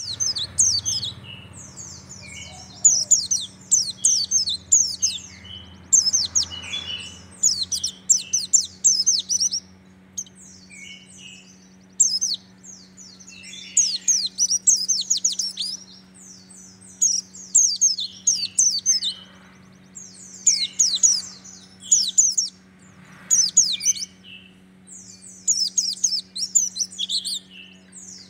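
A caged pleci dakun white-eye singing in fast bursts of high, rapid-fire twittering ('tembakan'), each phrase a second or two long with short pauses between. A steady low hum runs underneath.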